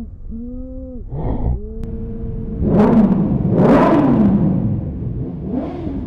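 Small motorcycle engine running steadily at low revs, then about three seconds in revving up loudly as the bike pulls away, its pitch rising and falling before easing off.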